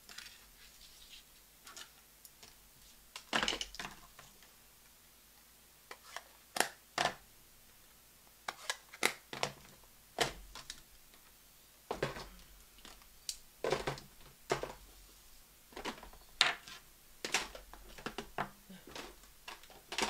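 Stamping supplies being handled and set down on a craft table: irregular clacks and taps of clear acrylic stamp blocks, plastic ink pad cases and thin metal dies, coming in small clusters with short quiet gaps.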